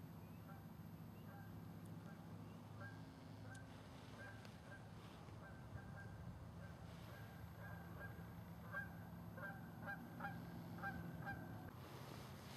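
Faint animal calls: a run of short, pitched calls repeating a few times a second, clearest in the second half and stopping shortly before the end, over a steady low hum.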